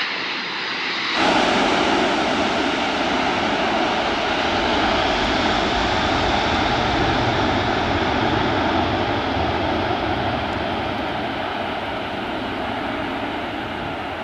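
Jet engines of a Boeing C-17 Globemaster, a four-engine turbofan transport, running steadily as it lands. The noise jumps up abruptly about a second in and fades slowly near the end.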